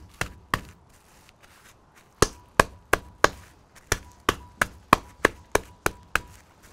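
Pounding a butterflied boneless pork chop thin between sheets of cling film with a heavy object (not a meat mallet): two sharp knocks, a pause of over a second, then steady strikes about three a second.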